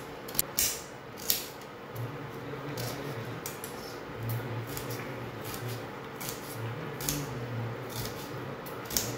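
Kitchen knife cutting through onions over a steel plate: a string of irregular crisp clicks and snaps, with a low hum underneath.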